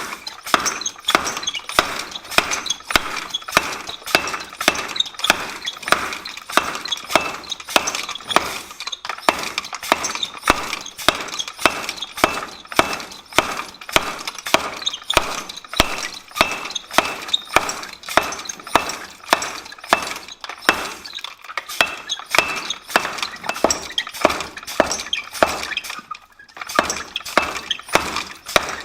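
Treadle hammer striking a thick bent steel part from a bulldozer to straighten it: a steady run of sharp, clanging metal-on-metal blows, about two to three a second, with a short pause near the end.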